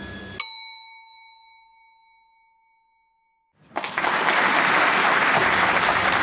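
A bright chime sound effect: one metallic ding about half a second in that rings and fades over roughly two seconds. A moment of dead silence follows, then applause that starts abruptly and keeps going.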